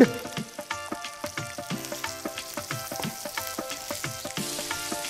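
Elephant foot yam pieces sizzling in hot mustard oil in a frying pan, with the scrape and clack of a spatula stirring as jaggery is added to melt.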